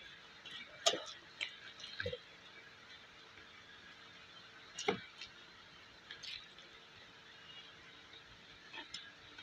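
A person eating by hand: wet chewing and mouth smacks, with a few sharp clicks, the loudest about a second, two seconds and five seconds in.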